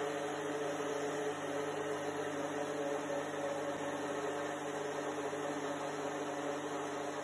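Countertop blender motor running steadily at one speed, blending a thick breadfruit punch mixture after water has been added.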